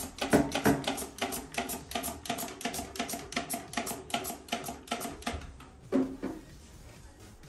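Trigger spray bottle squeezed rapidly over and over, about four or five short hissing sprays a second, misting cleaner onto a ceramic toilet. The spraying stops about five and a half seconds in, followed by a single thump.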